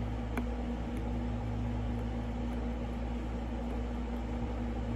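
Steady low background hum with a faint click about half a second in.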